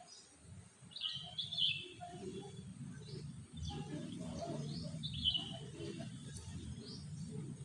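Birds chirping: clusters of short, high, falling calls about a second in and again in the second half, over a steady low rumble.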